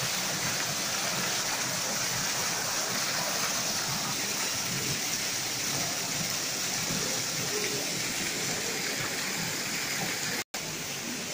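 Steady rush of water falling from an artificial rock waterfall, with a split-second gap near the end.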